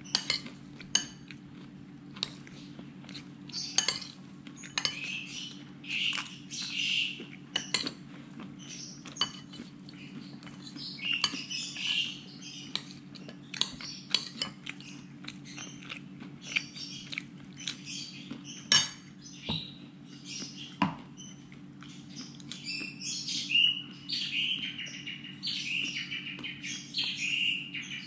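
Birds chirping, with the chirps running into nearly continuous warbling near the end. Frequent sharp clinks like cutlery against dishes, over a steady low hum.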